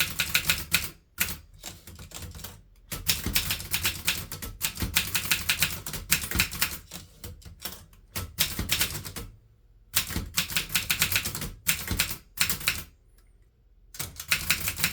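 1961 Groma Kolibri N manual typewriter being typed on: quick runs of crisp typebar strikes in bursts of a second or two, separated by short pauses, with a longer pause near the end.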